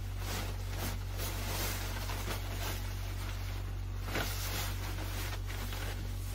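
Rustling of a Tyvek disposable coverall being stepped into and pulled up, in irregular swishes, over a steady low hum.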